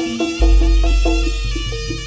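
Live Javanese jaranan ensemble playing: drums and quick repeated pitched notes, with a deep booming note that starts about half a second in and holds for over a second.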